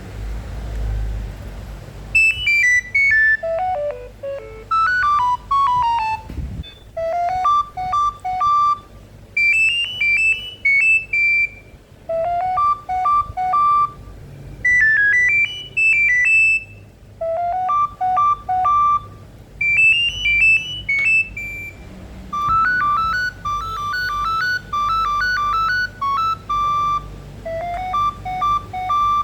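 A Nokia 7210 ringtone played on a Nokia 2760's speaker: a quick melody of short beeping notes, one at a time, starting about two seconds in, with its phrase repeating over and over.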